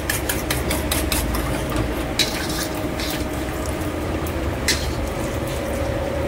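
Long steel ladle scraping and clinking against an iron wok as cooking oil is ladled and poured, a quick run of sharp clinks in the first half and one more near the end, over a steady low hum.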